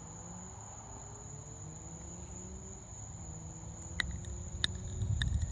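Night insects, likely crickets, trilling in one steady high-pitched tone. A few sharp clicks come about four seconds in, and a low rumbling noise builds toward the end.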